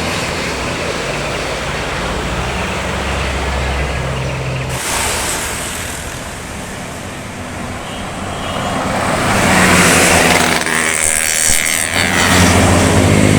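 Large vehicles, most likely buses, driving past on a road: steady diesel engine running and tyre noise, with one vehicle passing loudly about ten seconds in and another, with a strong low engine note, near the end.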